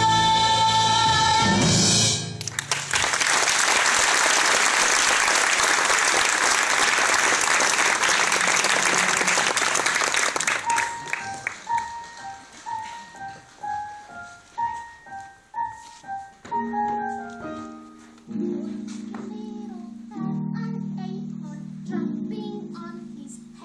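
Singers hold the final note of a musical number, which breaks off about two seconds in into audience applause. The applause lasts several seconds and dies away. A piano then plays a slow melody of single notes, joined near the end by low chords.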